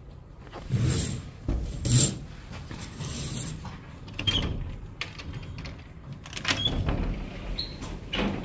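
Rustling and knocks as a curtain is brushed aside and a balcony door is gone through, the loudest about one and two seconds in, followed by scattered footsteps and handling knocks.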